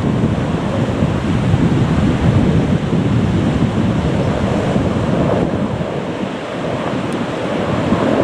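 Wind buffeting the microphone: a loud, uneven, deep rushing noise that flutters constantly.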